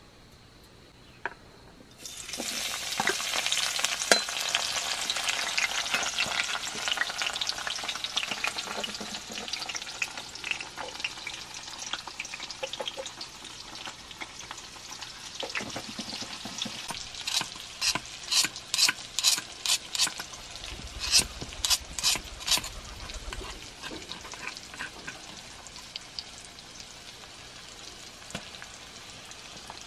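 Chopped ingredients hit hot oil in a metal wok and sizzle loudly all at once about two seconds in, the frying then easing to a steadier, quieter sizzle. Later a spoon taps and scrapes against the wok in a run of sharp clicks as the mixture is stirred.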